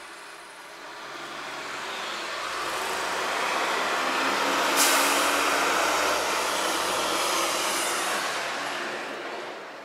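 A bus passing by on the street, its engine and tyre noise swelling for several seconds and then fading away, with a brief sharp hiss about five seconds in.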